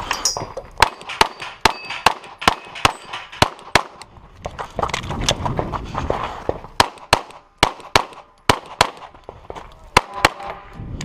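Pistol gunfire in a USPSA stage: quick strings of sharp shots, about two to three a second, with steel targets clanging. There is a pause of about two seconds near the middle before the shooting picks up again.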